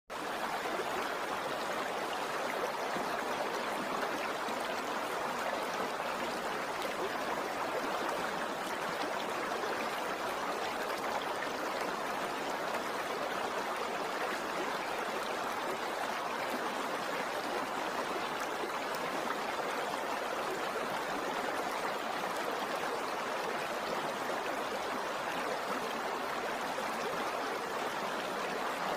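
Stream rushing over rocks: a steady, even hiss of flowing water that cuts in suddenly from silence and holds without change.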